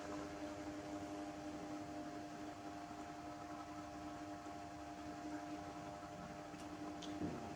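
Steady mechanical hum of several held tones over a soft hiss, with a faint click near the end.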